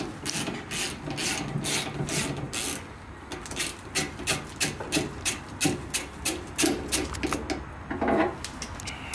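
Ratchet wrench with a 19 mm socket clicking as it runs the top strut-mount nut off a 1993 Suzuki Carry's front strut: a steady series of raspy clicks that gets faster about three and a half seconds in, with a duller clunk near the end as the socket comes off the stud.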